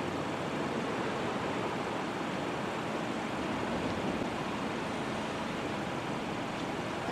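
Steady rushing noise, with a van driving past over a road–rail crossing about four seconds in.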